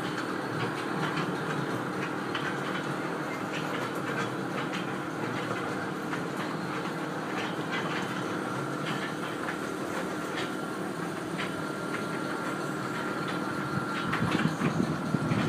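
Small funfair kiddie train ride running along its track: a steady running noise with scattered irregular clicks from the wheels.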